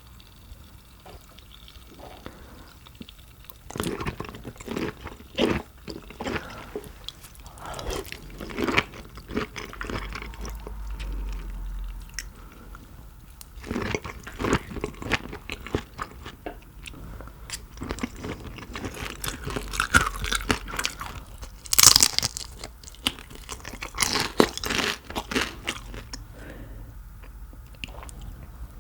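Close-miked eating of shrimp: a series of crunching bites with chewing in between, starting a few seconds in, the loudest crunches near the end.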